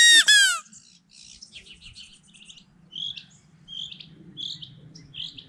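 Homemade wooden rubber-band quail call blown loudly as a quick run of high notes that each fall in pitch, lasting under a second. Then faint short calls from distant birds, which the caller takes for quail answering the call.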